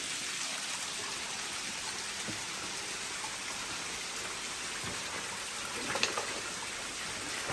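Water running and dripping through the cave, an even, steady rush with a few faint knocks scattered through it.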